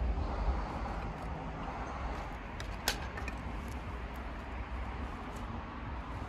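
Knife splitting and shaving firewood into thin kindling: a few short sharp clicks and snaps over a steady low rumble.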